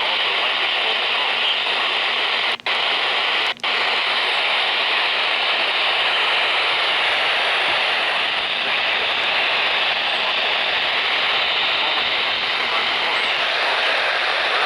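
Radio static: a steady hiss of noise from a radio receiver with no broadcast voice on it. It cuts out for an instant twice within the first four seconds.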